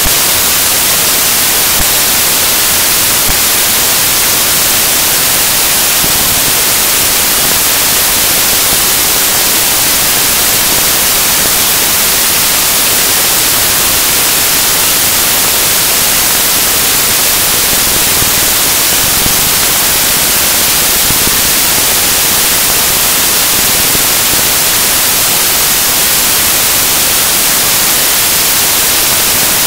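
Loud, steady static hiss, strongest in the highs, with no music or voice in it.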